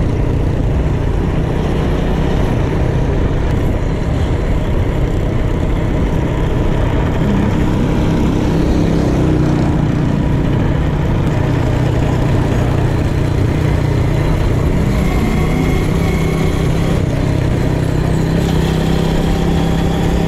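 Motor vehicle engine running steadily under a low rumble; its pitch rises and falls slightly near the middle, then holds steady.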